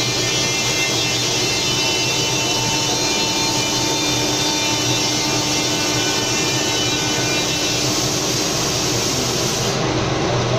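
SCM Morbidelli CX 100 CNC machining centre running steadily: a dense whirring with several steady whining tones.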